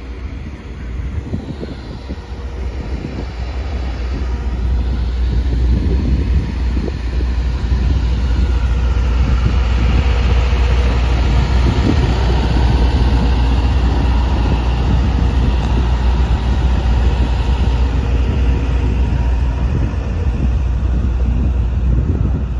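Generator powering the parked FRA X-ray rail inspection car DOTX 216, running steadily with a low drone. It grows louder over the first six seconds or so, then holds steady.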